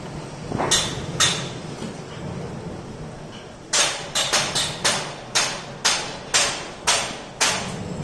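Hammering from a building site: two blows about a second in, then a steady run of about nine blows, roughly two a second, each ringing briefly.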